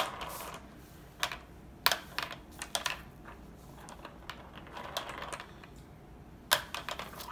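Irregular hard plastic clicks and taps as children press the buttons and knobs of a LeapFrog spinning letter wheel toy, with sharper clicks at the start and about six and a half seconds in.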